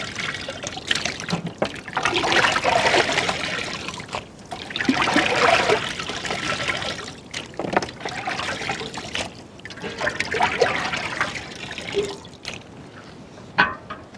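Water sloshing, splashing and dripping in uneven bursts as raw chicken pieces are washed by hand in a large metal pot of water and lifted out. A sharp knock comes near the end.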